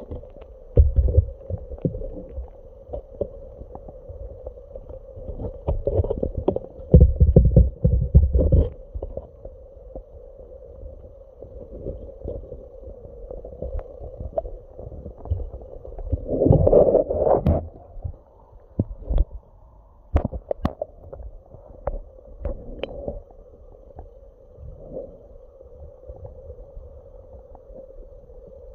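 Muffled sound from a smartphone microphone held underwater in a water barrel: a steady low hum with irregular dull thumps and knocks as the phone moves through the water, heaviest in the first few seconds and again in a burst a little past halfway.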